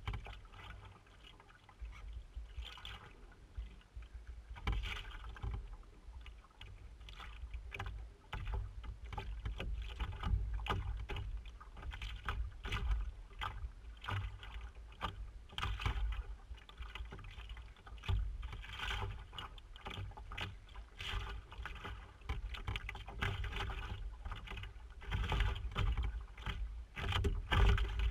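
Canoe being paddled: water splashing and lapping against the hull with the paddle strokes, over a gusting low rumble of wind on the microphone.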